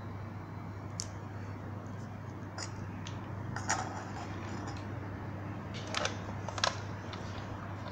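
Hard plastic toy parts clicking and knocking as an action figure and a toy vehicle are handled and set down on a table: a handful of separate sharp clicks, the loudest two close together near the end, over a steady low hum.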